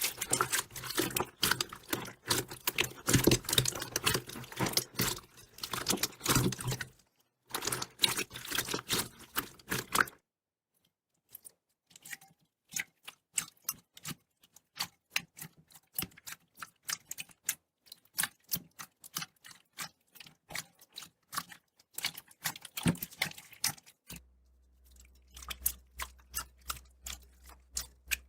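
Slime being squished and poked by hand: dense crackling and popping for about ten seconds, then, after a short break, separate sharp clicks and pops a few times a second.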